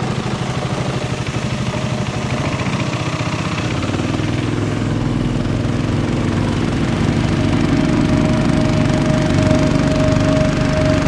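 A small combustion engine running steadily with a rapid pulsing beat, growing a little louder and fuller about halfway through.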